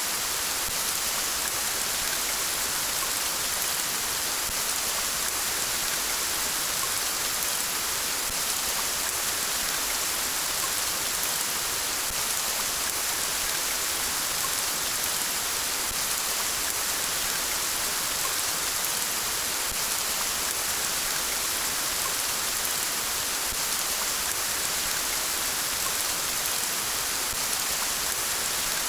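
Steady rain falling, a dense, even hiss with no breaks.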